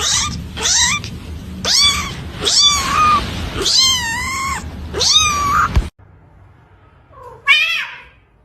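Domestic cat meowing loudly over and over, about six meows in the first six seconds, some of them drawn out. The sound cuts off suddenly, and a single meow follows near the end.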